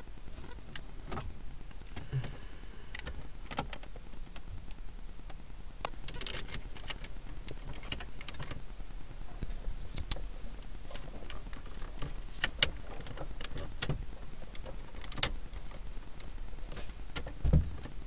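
Scattered sharp clicks, taps and light scrapes of hands handling a car stereo head unit and the plastic dashboard, over a low steady hum, with a dull knock near the end.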